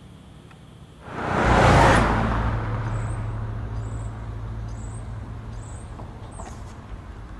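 A vehicle passing on the street: its noise swells suddenly about a second in, peaks, then fades slowly into a steady low hum. A few faint high chirps sound over it.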